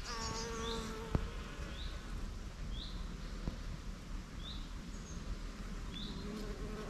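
Honeybees buzzing, one humming close by during the first second, then fainter. A bird repeats a short high chirp about once a second, and there is a single sharp click about a second in.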